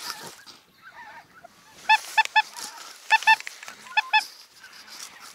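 Geese honking: short high-pitched calls in quick groups of two or three, repeated several times.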